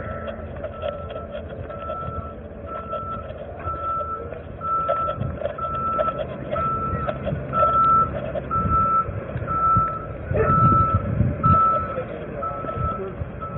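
A vehicle's reversing alarm beeping steadily, about two beeps a second, over low vehicle rumble. A few dull knocks and rustles come about ten seconds in.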